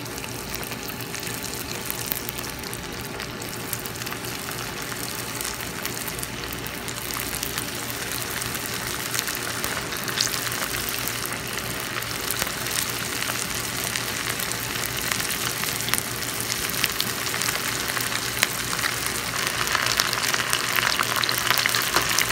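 Battered cauliflower pieces deep-frying in hot oil for a second, crisping fry: a steady sizzle full of fine crackles, growing louder toward the end as more pieces bubble in the oil.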